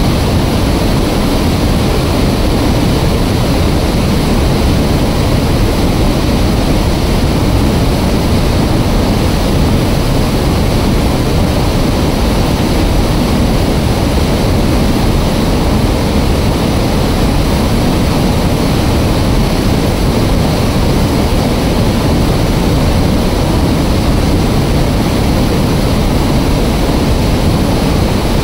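Loud, steady rush of water pouring through an open dam spillway during a pressure-relief discharge.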